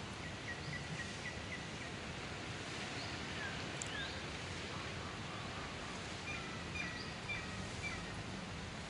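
Steady outdoor background noise with scattered short, high chirping calls: a quick run of chirps in the first couple of seconds, a few falling notes in the middle, and another run of chirps near the end.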